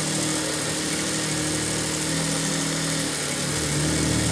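Industrial sewing machine running continuously while it stitches knit fabric strips onto a rug base: a steady motor and needle hum whose pitch shifts slightly as the sewing speed changes.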